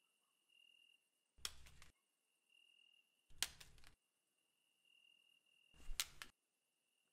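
Crumpled paper balls landing one by one on a concrete floor: three sharp thuds about two seconds apart, each with a brief papery crunch. Crickets chirp faintly and regularly behind them.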